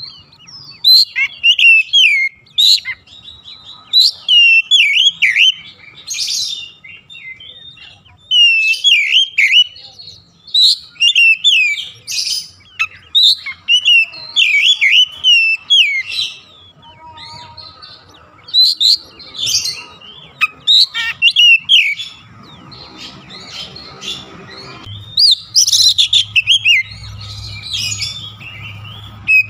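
Oriental magpie-robin singing: loud, varied whistled phrases with quick up-and-down slurs, delivered in bursts with short pauses between them. A faint low hum runs beneath the song in the last several seconds.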